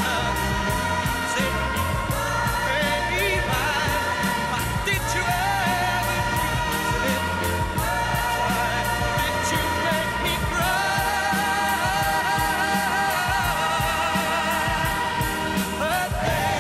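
Pop song: a male lead singer over a band with a steady beat, holding a long wavering note about ten seconds in.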